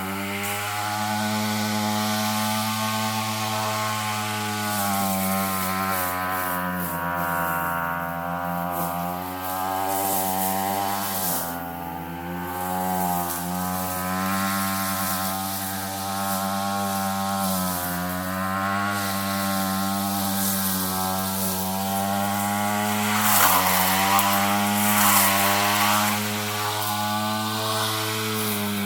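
Gas weed eater with a brush-cutting blade attachment running steadily through heavy brush. Its engine pitch sags and recovers several times as the blade bites into thick growth.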